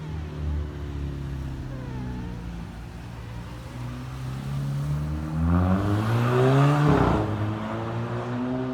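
Volkswagen Mk5 Golf GTI's turbocharged 2.0 TFSI four-cylinder running on the exhaust, then accelerating with rising pitch for about a second and a half. About seven seconds in, a sharp exhaust crack as the DSG gearbox upshifts (a DSG 'fart'), after which the engine note drops and carries on.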